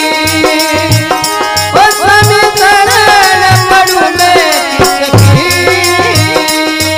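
Rajasthani devotional bhajan music: a gliding melody line over deep drum beats and a fast, even clicking rhythm from hand percussion.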